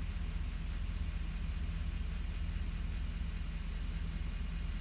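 Steady low rumble of an idling engine, with a faint hiss above it.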